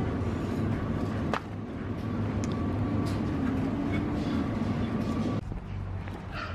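Steady rumble and hum of supermarket background noise, with a faint steady whine. It changes abruptly about a second in, and near the end drops to a quieter outdoor background.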